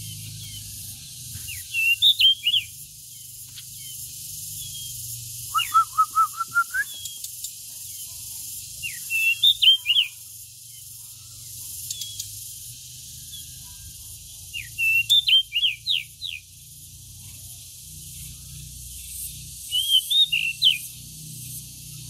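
Caged pied bushchat (decu) singing short, quick whistled phrases, one roughly every four to five seconds. About six seconds in, one phrase is a lower, faster run of notes.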